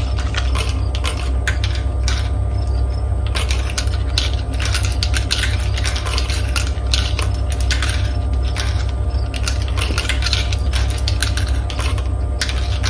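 Marbles rolling and clattering down a multicolour marble run track, a dense, irregular stream of small clicks over a steady low rumble.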